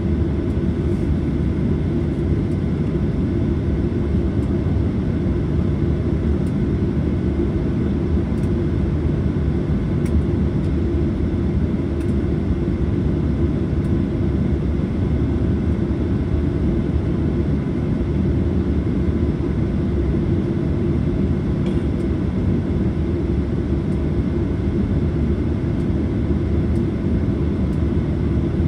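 Steady engine and airflow noise heard inside the cabin of a Boeing 737-800, whose CFM56-7B jet engines run at a constant setting. A few faint steady tones sit over the hum, and nothing in it rises, falls or changes.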